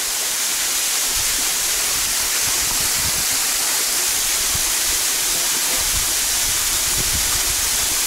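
Waterfall pouring onto rock and into a shallow pool: a steady rushing hiss.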